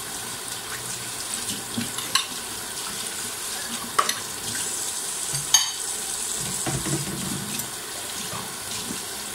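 Tap water running into a stainless steel sink while things are washed by hand, with three short sharp clicks of items knocking in the sink.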